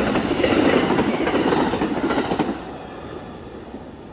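Amtrak Illinois Zephyr passenger cars passing close by at speed, their wheels rumbling over the rails. The noise drops off sharply about two and a half seconds in as the last car goes by, and the train fades away.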